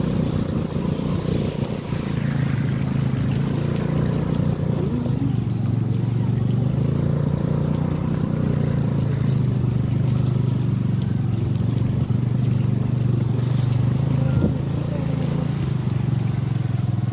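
Motor scooter's engine running steadily under way, a constant drone heard from on board the scooter.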